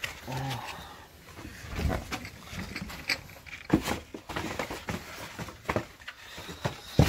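Handling noise at a cluttered shelf: scattered knocks and rustles as an egg carton is fetched, the loudest knock near the end.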